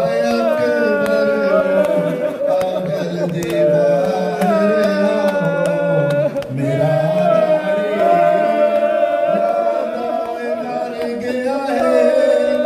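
A man's voice chanting a Punjabi noha lament in long, drawn-out held notes that slide between pitches.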